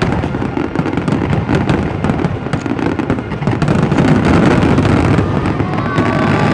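Fireworks going off in quick succession: a dense crackle of many overlapping bangs over a steady low rumble, getting louder about four seconds in.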